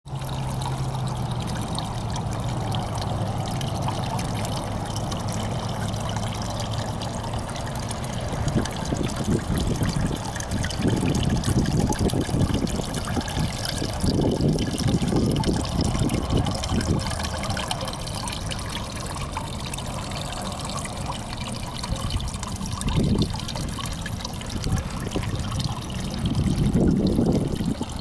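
Water trickling and splashing down a cast stone rock-waterfall fountain into its basin, a steady running-water sound. Irregular low rumbles come and go from about a third of the way in.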